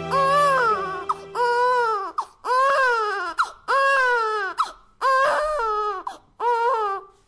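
A baby crying in repeated wailing cries, about six in all, each under a second and rising then falling in pitch, with short breaths between. A low musical drone underneath fades out about two seconds in.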